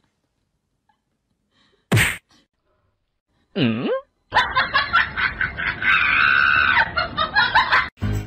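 Cat sounds: a short, sharp burst of noise about two seconds in, then a brief cat cry that dips and rises in pitch near four seconds. It is followed by about four seconds of dense, busy laughter.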